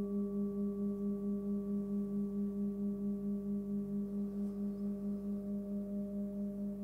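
Forged 19 cm singing bowl tuned to about 199 Hz (G) ringing on: one low hum with fainter higher overtones, wavering in loudness about twice a second and slowly fading.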